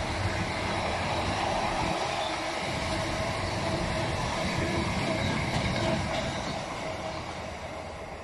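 Freight train of double-deck car-carrier wagons, loaded with new cars, rolling past with a steady rumble of wheels on rail. The sound fades over the last couple of seconds as the end of the train moves away.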